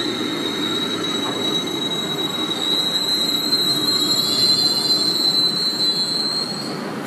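Beijing Subway train moving along the platform: a steady rumble with a thin high-pitched squeal over it, loudest in the second half.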